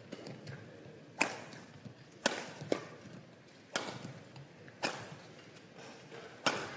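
Badminton rackets striking a shuttlecock back and forth in a rally: five sharp smacks about a second apart, with a few fainter knocks between them.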